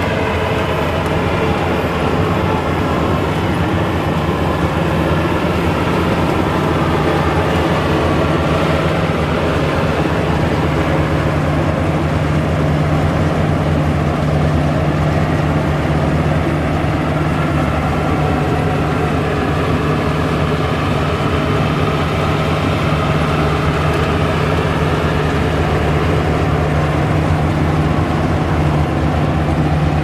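Maxxi Bimo 110 Plus rice combine harvester running steadily under load as it cuts and threshes ripe rice: an even, low engine drone with the whir of its threshing machinery.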